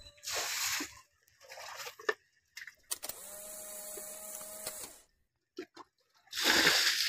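Several short bursts of water splashing and sloshing as muddy water is scooped by hand from the bottom of a flooded grave pit. Each burst cuts off abruptly, and the loudest comes near the end.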